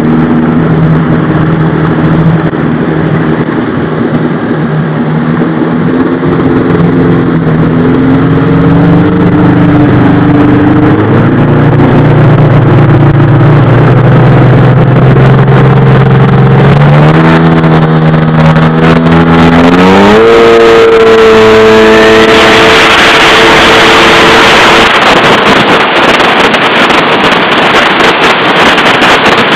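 Jet ski engine running at low speed, then throttling up with a steep rise in pitch about 17 to 20 seconds in. From about 22 seconds a loud steady rush of wind and water takes over as the craft runs at speed.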